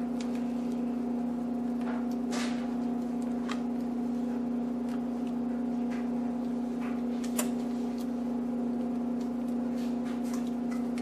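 A steady appliance hum throughout, with a few short scrapes and taps of a spatula against a stainless steel mixing bowl as soft cream cheese filling is scooped out and dolloped into a baking pan.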